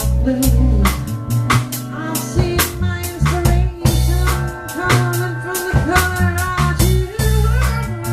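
Live blues band playing: a drum kit keeps a steady beat with snare and bass drum under a bass line, while a lead instrument plays bending notes.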